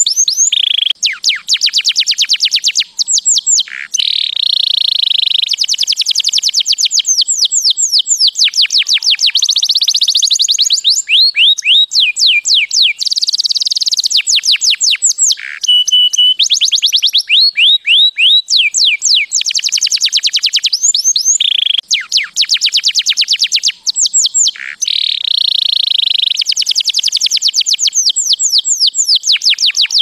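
Domestic canary singing a long, continuous song of rapid trills of repeated notes and downward-sweeping notes, with only a few brief pauses.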